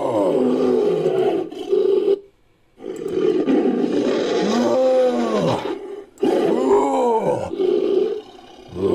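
Made-up ape-creature roars, layered from recorded animal roars and calls: three long roaring calls with short breaks between them, each rising and falling in pitch.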